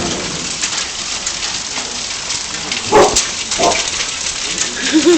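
Heavy hail coming down, a dense steady clatter of countless small impacts. A few short voice-like sounds break in about three seconds in and again near the end.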